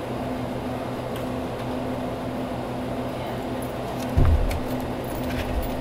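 Steady mechanical hum of a convenience store's interior, with a short low thump about four seconds in.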